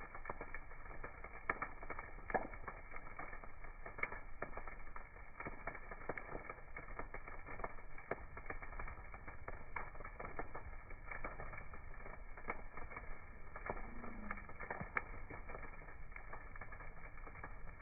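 Campfire burning, wood crackling with irregular sharp pops over a low steady hiss of the flames.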